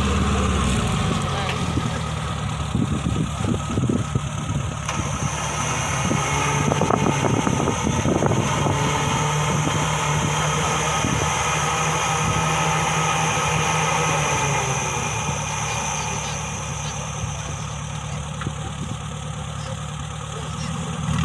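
Off-road vehicle engine running steadily, mostly at idle, with scattered knocks and clicks in the first half and voices in the background.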